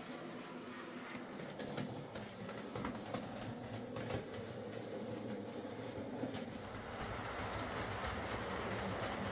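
Hornby J83 0-6-0T OO gauge model tank engine running along the layout track: a steady motor and wheel hum with scattered light clicks from the rail joints, getting a little louder about two-thirds of the way through.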